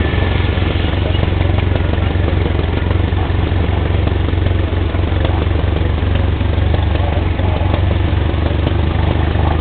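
ATV engines running steadily while riding a dirt trail: a continuous low drone that holds an even level.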